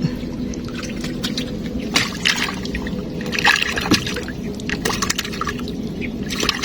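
Water sloshing and splashing in short bursts, about two and three and a half seconds in, over a steady low hum.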